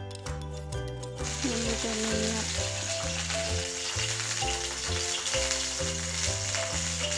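A steady sizzle of food frying in hot oil, starting abruptly about a second in, over background music with a repeating bass line.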